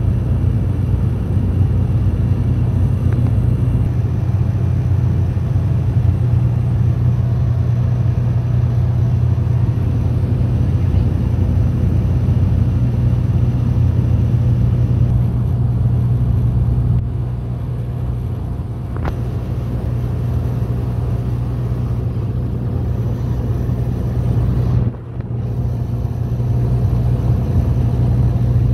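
Steady drone of a Dash 8-300's turboprop engines and propellers heard from inside the cabin, dominated by a strong low propeller hum. It softens for a couple of seconds past the middle and cuts out for an instant near the end.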